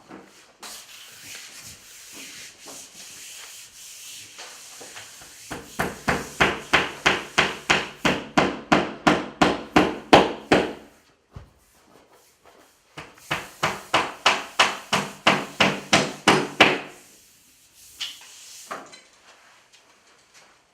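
Rapid, even knocking on a wall panel, about three to four blows a second, in two runs of several seconds with a short pause between; each blow rings with a hollow tone. Before the knocking, a soft rubbing.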